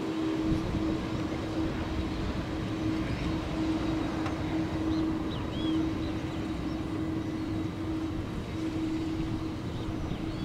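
Airbus A330-200 airliner's twin turbofan engines running at taxi power: a steady rumble with a low, steady hum through it.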